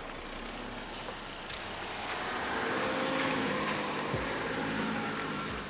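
A motor vehicle passing: engine and tyre noise swell to a peak about three seconds in, then ease off.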